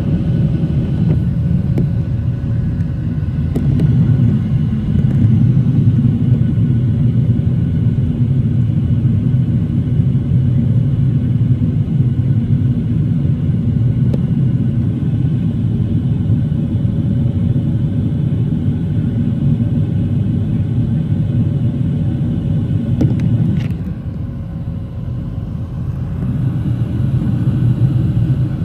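Boeing 737 airliner climbing out, heard inside the cabin: the steady low rumble of the jet engines and airflow. Near the end it drops a little and then builds again.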